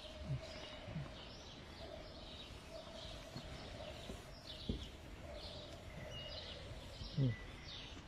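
Birds chirping over and over in the background, with a sharp click about halfway through and a few soft thumps from the flicking of Subbuteo table-football figures.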